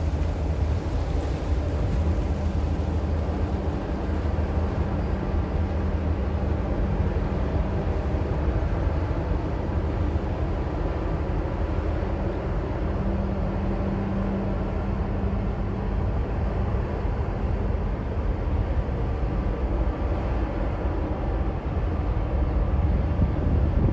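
Heavy-lift cargo ship under way close by, its engine giving a steady low rumble, with a hum rising above it for a few seconds at a time.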